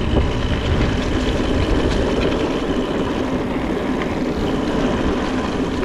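Electric mountain bike descending fast on a rough trail: a steady rumble of tyres and rattling bike, with wind rushing over the microphone.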